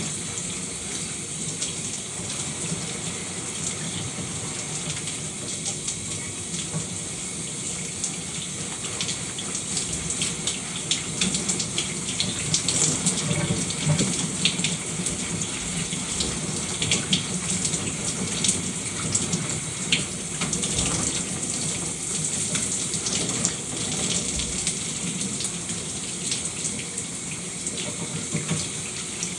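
Shower running steadily, the spray hissing against the tub or tiles, with irregular louder splashes through the middle.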